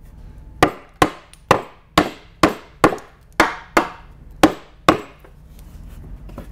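Hammer knocking a tight-fitting softwood board into place on a wooden staging horse frame: about ten sharp strikes, roughly two a second, that stop about five seconds in.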